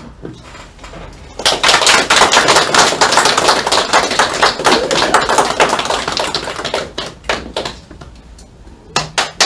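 Applause from a small group of seated people clapping, starting about a second and a half in and dying away near the end.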